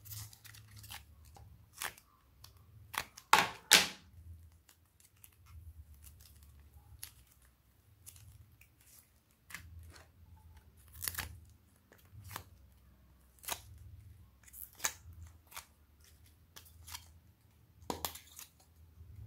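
Soft modelling clay being pressed and peeled out of a plastic mold and dropped onto slime, giving scattered sharp clicks and crackles. The loudest is a pair of clicks about three and a half seconds in.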